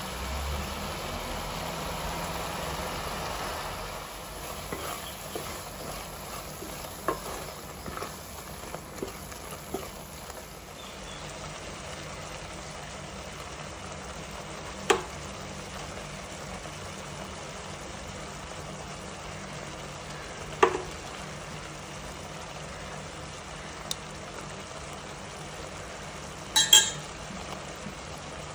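Onion-tomato gravy bubbling and sizzling in a nonstick pan: a steady frying hiss, a little louder for the first few seconds. Scattered small clicks, with three sharp clicks spread across the later part.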